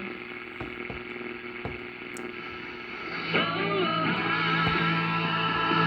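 1946 Philco 45-350 tube radio playing through its speaker while being tuned: a weak, noisy signal for about three seconds, then a music station with guitar comes in louder, a steady low hum beneath it.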